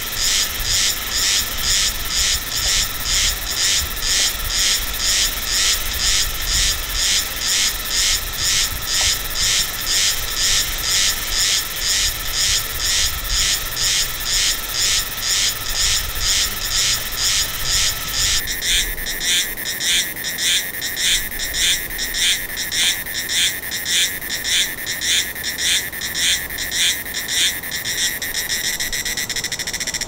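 Silver-bellied cicada (Meimuna sp.) singing a duck-like, quacking call: loud, evenly spaced pulses at about two to three a second. About two-thirds of the way through the pitch shifts and the rhythm changes, and near the end the pulses run together.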